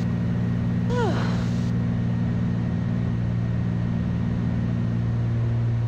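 Twin Cessna 310's two piston engines and propellers droning steadily in flight, heard inside the cockpit as an even, unchanging low hum.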